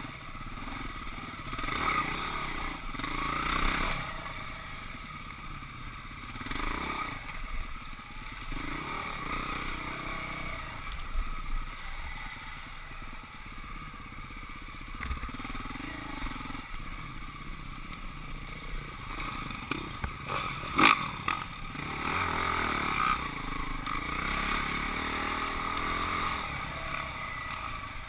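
Husqvarna 449 single-cylinder four-stroke dirt bike engine running under throttle, revving up and backing off again and again. A single sharp knock about three-quarters of the way through is the loudest sound.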